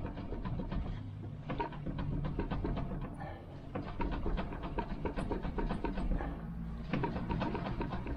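Volkswagen Golf Mk2 1.6 diesel engine running with a rapid diesel clatter over a steady low hum, getting louder and easing off several times.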